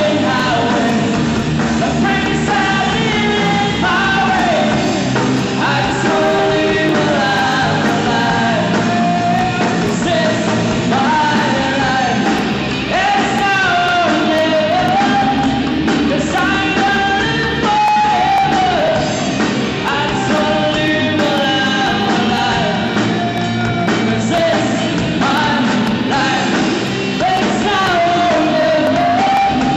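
Live rock band playing: drum kit, electric guitars and a sung lead vocal, loud and steady.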